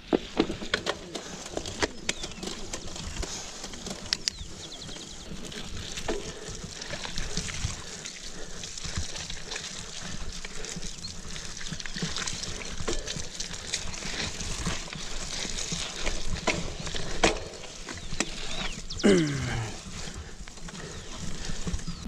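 Mountain bike rolling over a wet, rutted dirt track: continuous tyre and ground noise with frequent sharp clicks and knocks as the bike rattles over bumps. Near the end, a short pitched cry falls quickly in pitch.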